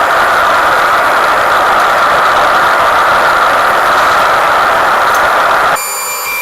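Blacksmith's forge running with a steady, loud rushing noise, which cuts off suddenly near the end as music starts.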